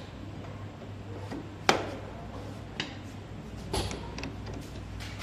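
A few short, sharp metallic clicks and knocks as the loosened nozzle cap and nozzle parts are handled and lifted off a Hyundai electronic unit injector held in a vise, the loudest a little under two seconds in, over a steady low hum.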